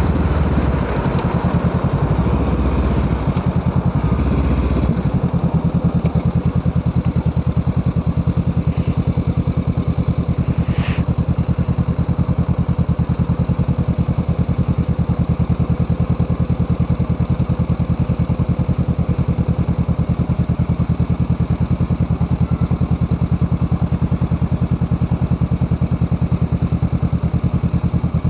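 Honda Rebel 500's parallel-twin engine running through a Musarri aftermarket muffler. The sound shifts for the first few seconds, then settles into a steady, even exhaust pulse.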